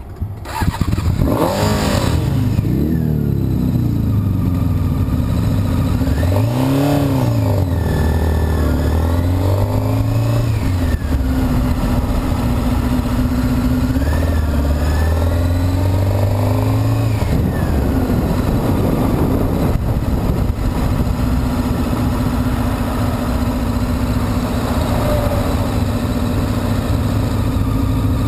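Honda CBR sport motorcycle engine pulling away and accelerating. Its pitch climbs and drops back several times as it shifts up through the gears, then it runs steadily at cruising speed for the last third.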